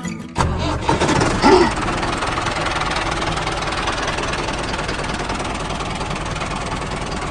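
An engine starts about half a second in and then runs steadily, with a dense, even noise.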